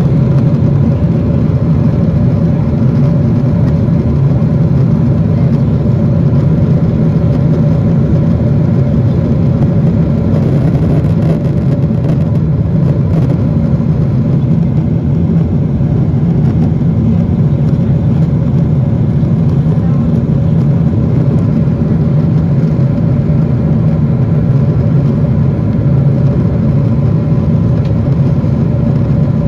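Steady cabin noise of a Boeing 777-300ER in flight: the rush of air past the fuselage with the low drone of its GE90 engines.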